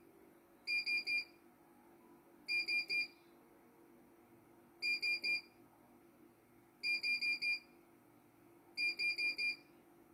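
Control-panel key beeps of a CNY computerized embroidery machine as its buttons are pressed. The beeps are high and come in quick runs of three or four, about every two seconds.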